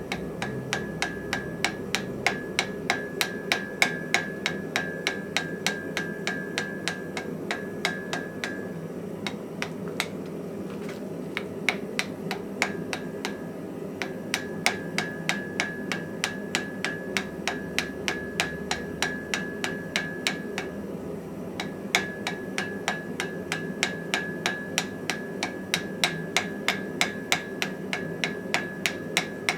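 Rapid, regular hammer blows on hot iron, about three or four a second, forge-welding a steel face onto a small wrought-iron anvil body. A steady metallic ring comes and goes over a constant background roar.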